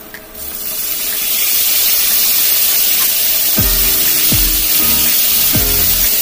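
Marinated beef hitting hot oil in a frying pan and sizzling loudly, a steady hiss that builds just after the start as the meat goes in and keeps on while it is stirred. Background music with a thumping beat comes in about halfway through.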